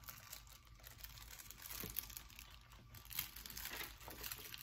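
Clear plastic snack wrapper being handled and crinkling faintly, with a couple of sharper crackles about two and three seconds in.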